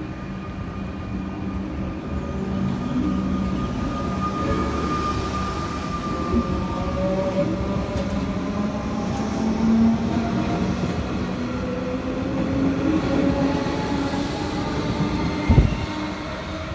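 Comeng electric suburban train pulling out of the station past the platform, its traction motors whining in several tones that climb slowly in pitch as it gathers speed over the wheel and running rumble. A single thump near the end.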